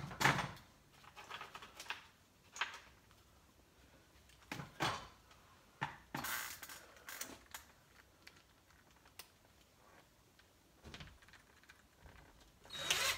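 Scattered light clinks, knocks and rustles of a cordless drill and screws being handled, with a short run of rattling about six seconds in.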